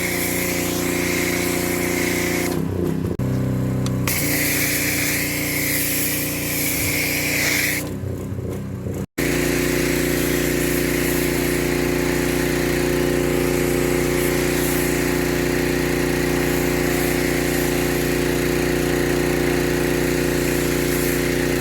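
Husqvarna PW3200 gas pressure washer engine running steadily under load while the MATCC foam cannon sprays snow foam with a steady hiss. The hiss stops twice for about a second as the spray pauses. There is a sudden break about nine seconds in, after which engine and spray run on unbroken.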